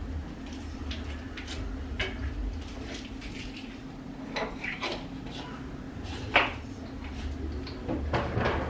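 Kitchen clatter: a scatter of short clinks and knocks of dishes, utensils and cupboards, the loudest about six seconds in, over a steady low hum.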